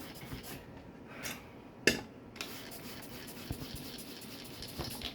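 Hand spray bottle squirting water onto a freshly welded nut on a broken exhaust stud, in a couple of short sprays, to cool and contract the threads so the stud will turn out.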